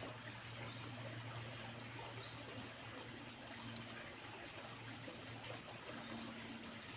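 Tropical forest ambience: insects buzzing with a steady high-pitched drone over a low, even background rumble.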